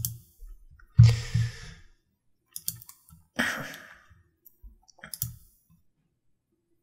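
Scattered clicks of a computer mouse and keyboard, a few separate clicks spread through, with two short breathy noises about one and three and a half seconds in.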